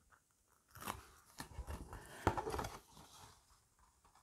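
Faint paper crinkling and rustling in a few short spells as the backing strip is peeled off double-sided adhesive tape on a cardstock box.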